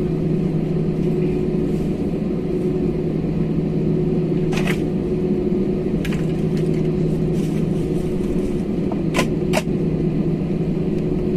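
Steady drone inside a jet airliner's cabin, with a constant low hum from the engines idling on the ground. Four short sharp clicks cut through it, one about midway, another a second later, and two close together near the end.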